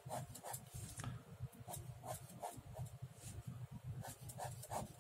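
Ballpoint pen drawing on sketchbook paper: a quick, irregular series of short scratchy strokes as lines are gone over to make them bold, over a steady low hum.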